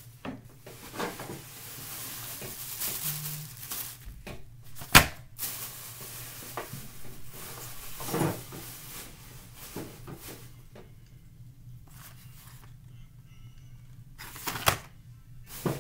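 Chewing and crunching of cornstarch chunks, an irregular dry crackle, with a sharp click about five seconds in and a couple more near the end.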